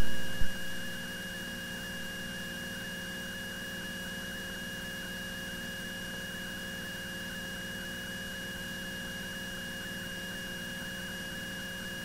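Steady electrical hum and thin whine with a faint hiss from an aircraft intercom audio line between transmissions, with a small click just after the start.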